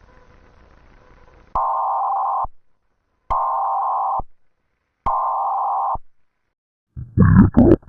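Three bursts of screechy digital data tones in the style of Emergency Alert System (SAME) header or end-of-message signals, each about a second long and a second apart, after a faint hiss. Loud music with guitar starts near the end.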